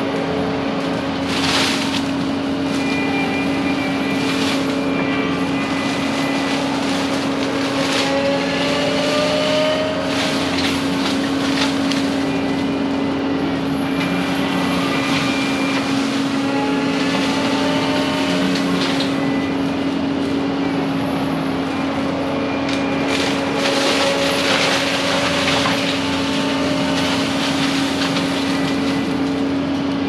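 Prinoth M450s-1600 forestry mulcher on a compact track loader running with a steady drone, its drum grinding through brush in several louder, rougher surges.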